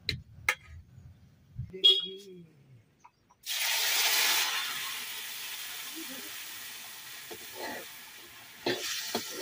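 Pieces of food dropped into hot oil in a pan, setting off a loud sudden sizzle about three seconds in that slowly dies down. Near the end a spatula clicks and scrapes against the pan as the food is stirred.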